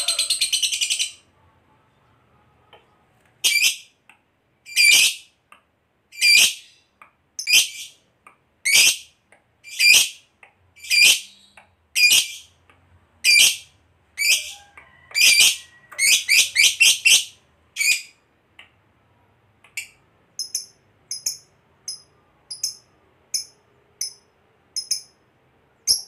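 Lovebird calling: a rapid high chattering trill that breaks off about a second in, then a string of sharp, shrill chirps about one a second that speed up into a quick run. After a short pause come softer chirps, about two a second.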